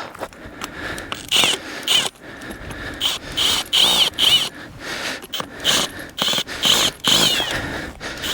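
A cordless drill driving a tent screw into the ground in a series of short trigger pulses. The motor whine rises and falls with each pulse, with grinding in between as the screw struggles to go in.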